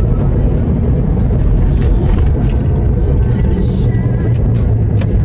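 Inside a moving car's cabin: the steady low rumble of the engine and the tyres on the road.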